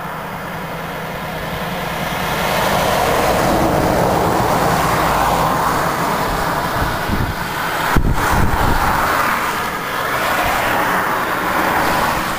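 Passing road traffic: several vehicles going by close, their tyre and engine noise swelling and fading one after another, the last of them a van. A single sharp knock about eight seconds in.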